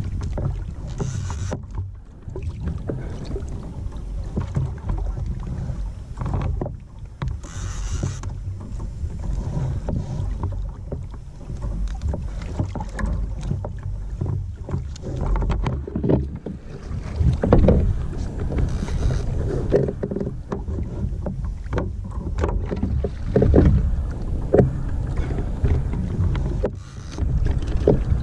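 Wind rumbling on the microphone and water moving against a kayak hull at sea, with scattered knocks, the loudest about two-thirds of the way in and again near the end.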